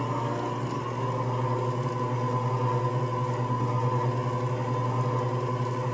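Hamilton Beach stand mixer running steadily, its wire whisk beating cake batter in a steel bowl.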